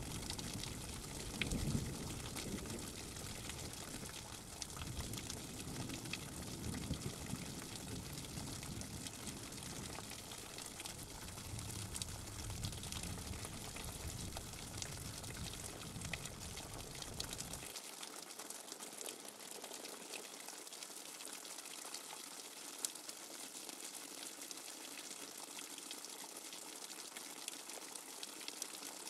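Steady noisy hiss with scattered faint ticks, water- or rain-like in character. A low rumble under it cuts off abruptly about 18 seconds in.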